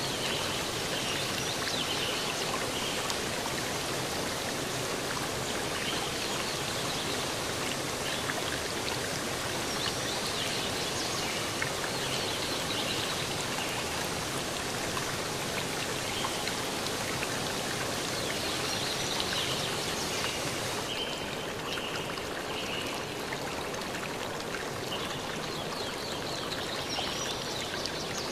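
Steady rushing sound of flowing water, like a stream, at an even level; it turns a little duller about three-quarters of the way through.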